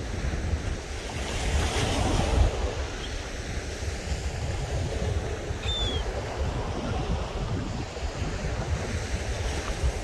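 Gulf surf breaking and washing up the beach, with wind rumbling on the microphone; the wash swells louder about two seconds in. A single short, high bird call sounds a little past halfway.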